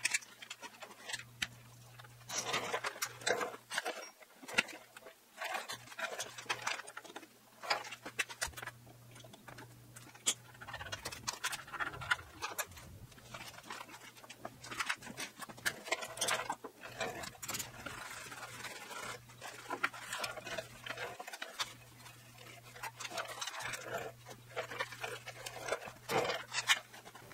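Wiping and scrubbing with a rag on a pressure washer's frame: irregular rubbing and rustling with scattered clicks and knocks, over a steady low hum.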